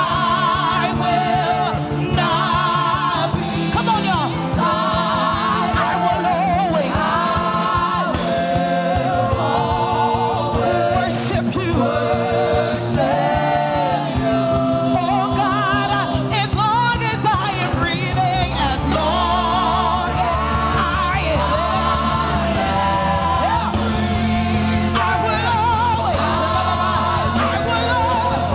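Gospel praise and worship song: sung melody with vibrato over instrumental accompaniment with a steady bass line.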